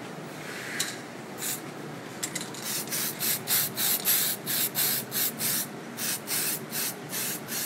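Samurai aerosol spray paint can sprayed in short hissing bursts, about two a second, starting about a second and a half in: candy-tone colour being misted onto a test panel in light passes.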